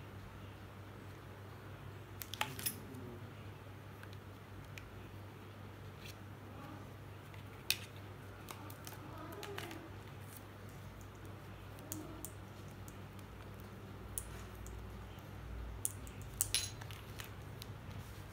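Drill accessories being handled on a table: scattered light clicks and taps as a drill bit, a plastic side handle and a power cord are picked up and set down. Under them runs a faint steady low hum.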